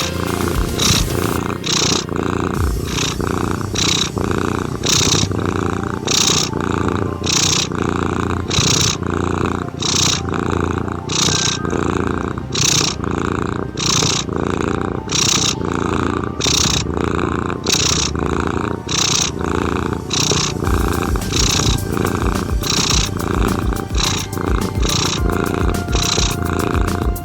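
Domestic cat purring steadily and continuously, mixed with soft ambient music, with a regular pulse about once a second.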